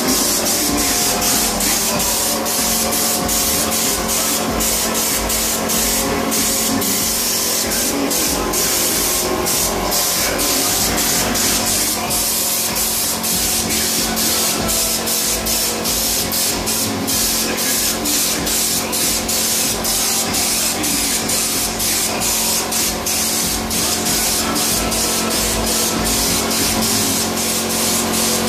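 Compressed-air spray gun with a U-Pol Raptor bedliner bottle screwed on, spraying the textured coating: a continuous hiss that dips briefly and often. A steady low hum runs underneath.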